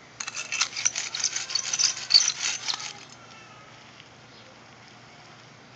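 Close handling noise: a dense, rapid crackling rattle that starts just after the beginning and stops about three seconds in.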